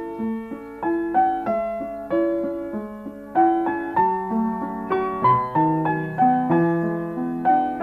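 Background piano music: a melody of single struck notes, a new one about every half second, each dying away before the next.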